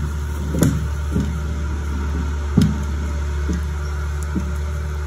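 Heavy diesel engine of a logging machine running steadily, with a few sharp knocks, the loudest about half a second and two and a half seconds in.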